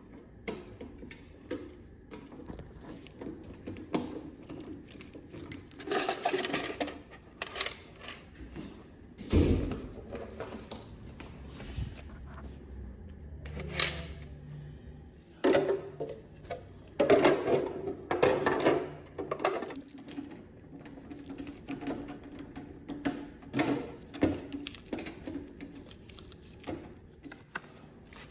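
Irregular clicks, clatters and knocks from handling a gumball machine while collecting its quarters, with a low hum for a few seconds in the middle.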